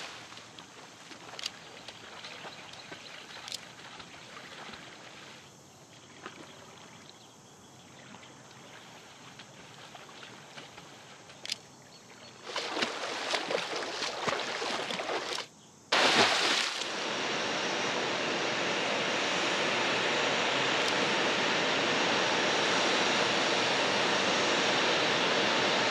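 Water splashing and lapping, with a louder run of splashing about halfway through. A sharp burst near 16 s gives way to a steady, louder rushing hiss for the rest.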